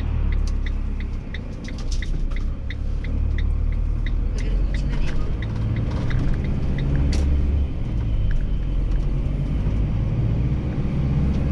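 Motorhome engine and road rumble heard from inside the cab while driving. A turn-signal indicator ticks about three times a second and stops about four seconds in.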